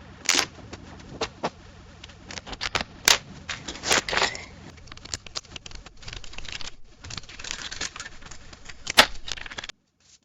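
Coins jingling and clinking: an irregular run of sharp metallic clinks over a steady rustle of handling. The loudest clink comes about nine seconds in, and the sound cuts off suddenly shortly after.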